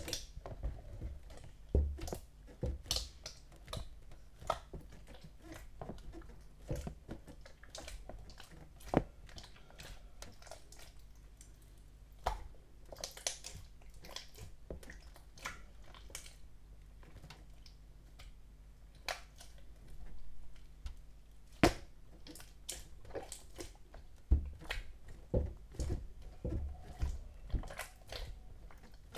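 Soft, wet slime being squished and worked by hand, giving many irregular sticky clicks and pops.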